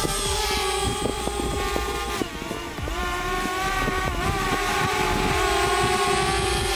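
DJI Spark quadcopter's small brushless motors and propellers whining as it hovers just after a test takeoff, one of them a newly replaced motor. The pitch sags and wavers briefly partway through, then holds steady, over a low gusty rumble on the microphone.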